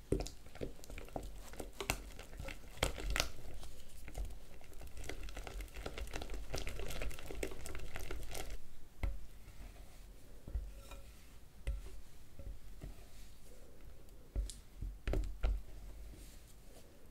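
Crinkling and crackling handling noise with many small clicks and light taps, busiest in the first half and thinning out to scattered taps later on.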